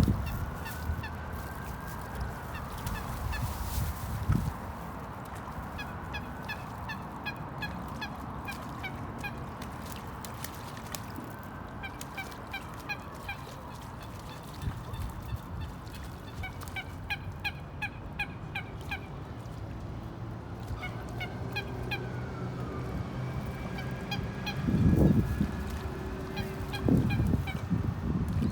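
Waterbirds calling: honking calls mixed with rapid runs of short high notes and a few gliding calls, with two louder, deeper sounds near the end.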